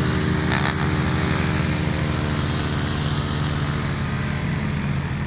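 Quad (ATV) engine running steadily at an even pitch.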